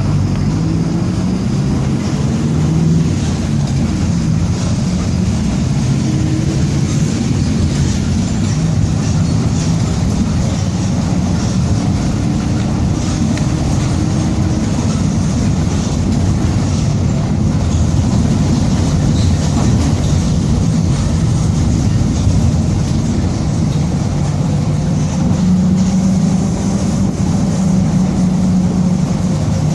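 Mercedes-Benz OF-1722M city bus under way, its diesel running with the differential growling, a drone that rises and falls in pitch with road speed.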